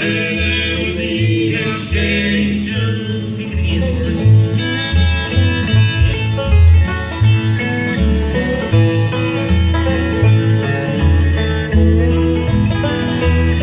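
Live bluegrass band playing a gospel tune: five-string banjo, acoustic guitar and dobro over a steadily pulsing upright bass.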